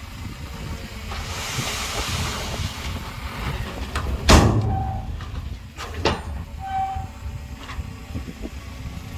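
Heavy earthmoving machinery running with a steady low engine rumble. A hiss comes about a second in, a loud bang about four seconds in, and two sharper knocks a moment later.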